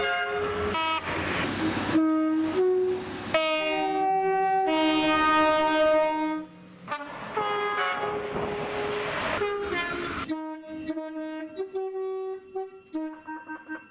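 British train horns sounded repeatedly, a two-tone horn switching between a low and a high note, over the rushing noise of passing trains. A little after halfway the rush stops and shorter, quieter horn toots carry on.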